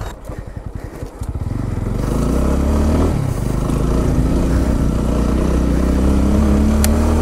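Motorcycle engine ticking over with an even low pulse, then pulling away about a second and a half in and running steadily under load, its note rising slowly towards the end.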